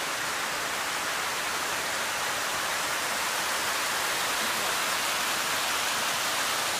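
Shallow mountain creek rushing over rocks close by: a steady, even rush of water.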